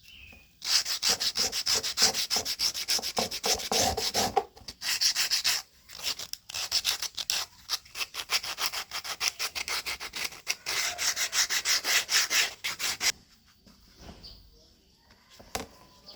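Quick back-and-forth rubbing strokes on cardboard, several a second, in a few bursts with short pauses, stopping about thirteen seconds in.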